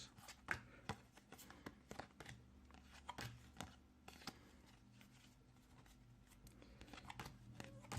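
Faint handling of Pokémon trading cards: irregular soft clicks and rustles as cards are picked up, flipped and slid against each other.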